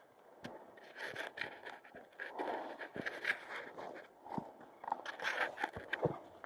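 Hiking footsteps on a mountain trail: irregular boot steps with scrapes and crunches of grit and stone underfoot.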